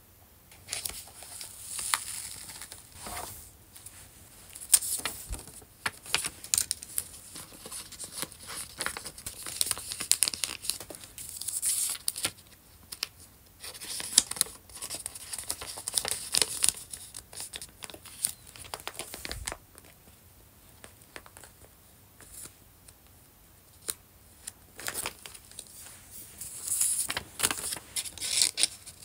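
Clear plastic binder pocket pages and card sleeves crinkling and rustling as paper trading-card backing sheets are slid in and out of them, in irregular bursts with light clicks. A quieter pause comes about two-thirds of the way through.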